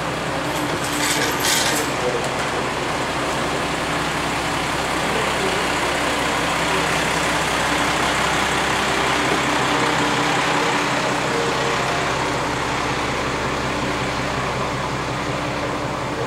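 Diesel railcar (Tarumi Railway Hi-Mo 295-315) idling at the platform, a steady engine hum. A short hiss comes about a second in.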